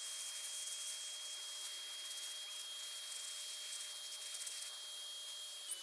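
Aerosol spray can hissing in spurts as brown primer is sprayed onto a steel car-jack base plate.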